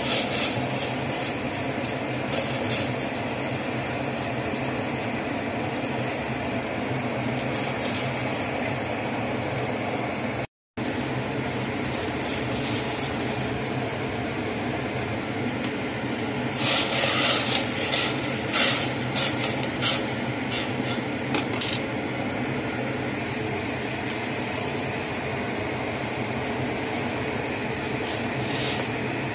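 Water boiling in a speckled enamel pot: a steady seething noise over a low mechanical hum. Past the middle comes a run of sharp scrapes and clinks as a spoon works against the pot, with one more near the end. The sound drops out for a moment about a third of the way in.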